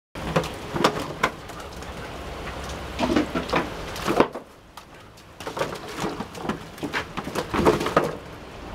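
Irregular splashes and sloshes as bare feet step through shallow water in an inflatable vinyl paddling pool, with a pause about halfway through.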